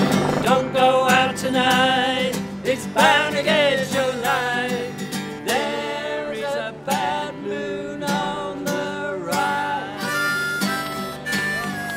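Harmonica played into a handheld microphone, with strummed acoustic guitar chords behind it; the harmonica's wavering melody notes lead over the strums.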